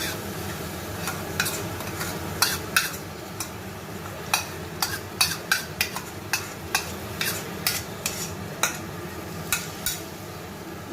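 A utensil stirring and scraping a tomato-and-spice masala in a frying pan, with sharp clicks and knocks against the pan over a steady sizzle.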